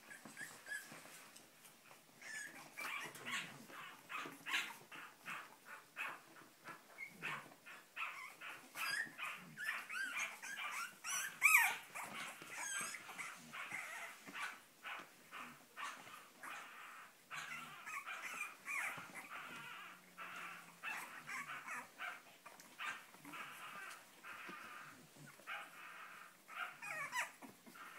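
A litter of Cavalier King Charles Spaniel puppies crying: many short, high-pitched calls overlapping one another, with a louder one about eleven seconds in.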